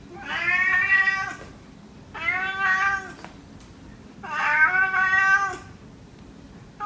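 Domestic cat meowing repeatedly: three long, drawn-out meows about two seconds apart, with a fourth starting at the very end.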